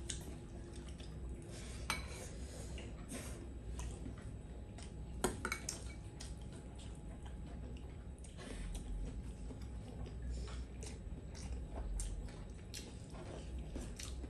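Metal spoons clinking and scraping against ceramic serving bowls and steel plates as food is dished up, with scattered sharp clinks, the loudest about two and five seconds in.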